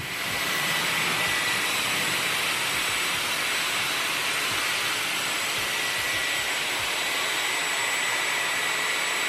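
Dyson Airwrap running with its curling barrel attachment: a steady rush of air with a thin, high motor whine over it, switching on at the very start and rising to full speed within about half a second.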